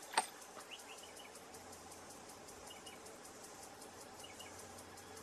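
Quiet outdoor background of faint insect noise, with a few soft short paired chirps about every second and a half and one sharp click just after the start.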